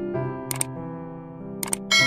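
Light keyboard background music with sound-effect mouse clicks, a quick double click about half a second in and another near the end, followed by a bright bell ding that rings on past the end, the effects of a subscribe-and-bell animation.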